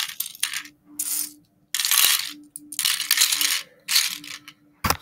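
Small plastic Lego Technic pieces clattering as they are dropped by the handful into the plastic bed of a Lego Technic dump truck. About six separate clatters come in quick succession, roughly one every half second to a second.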